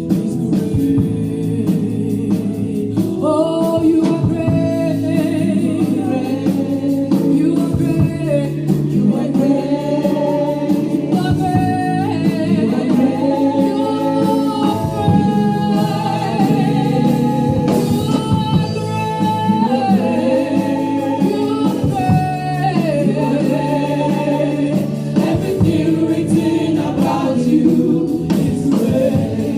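Gospel worship music: a group of voices singing a melody over sustained instrumental accompaniment, running without a break.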